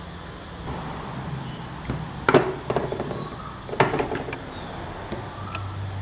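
Clicks and knocks of hand tools and a small battery pack being handled on a wooden tabletop as pliers are picked up and put to work on a cell terminal. There are two louder knocks, about two and four seconds in, among lighter clicks.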